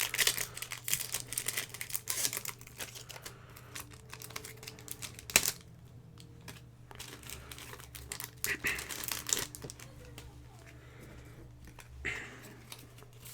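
Crinkling of a foil Pokémon booster-pack wrapper and rapid fingernail tapping on the packs and cards for ASMR tingles. The tapping is dense in the first few seconds, with one sharp click about five seconds in, then it goes quieter and sparser.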